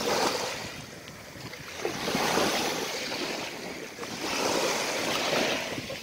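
Small, gentle sea waves washing up onto a sand beach and running back, the rush swelling and fading twice on a calm sea.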